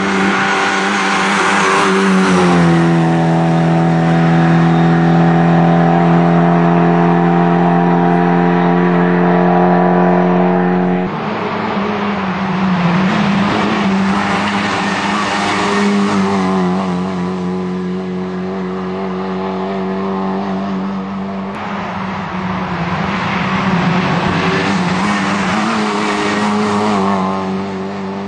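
Rally car engine heard from inside the cabin. It holds high revs for several seconds and drops off sharply about eleven seconds in. After that it rises and falls repeatedly with lifts and gear changes, over steady tyre and road noise.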